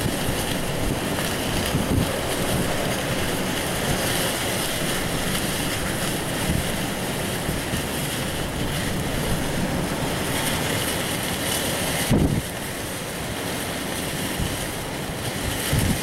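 High wind of a snow squall rushing steadily, gusting and buffeting the microphone in low, uneven thumps. A sharp gust hits about twelve seconds in, and the wind runs a little quieter after it.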